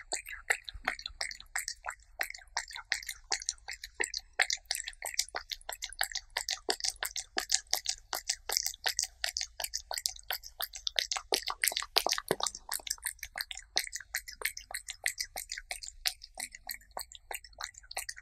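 Cat licking and chewing soft chicken breast puree, close-miked: rapid wet tongue clicks and smacks, about five a second.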